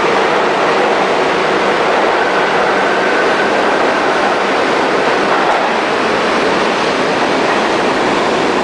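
R42 New York subway train running past on the far station track, with a steady rumble and clatter of wheels on the rails. A faint high whine rises out of it for a few seconds in the middle.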